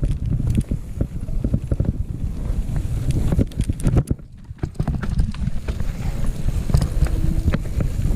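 Mountain bike ridden fast down a rough trail: tyres rumbling over dirt and rock, with a constant clatter of knocks and rattles from the bike. The noise drops briefly about four seconds in.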